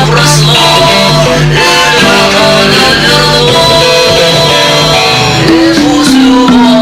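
Music: a melody carried by sustained instrumental notes that step from one pitch to the next.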